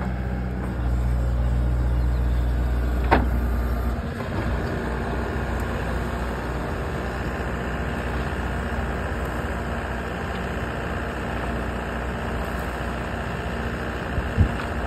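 Skid steer loader's diesel engine running under load while its hydraulics spin a rotary screening bucket, with dirt tumbling and sifting through the mesh. A deep engine drone dominates the first four seconds, then eases to a steadier, grittier running sound. A short falling squeal comes about three seconds in.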